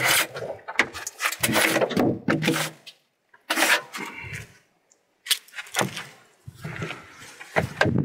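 A large log being rolled on a sawmill bed with a cant hook: wood and steel knocking and scraping in several uneven bursts as the log is levered over.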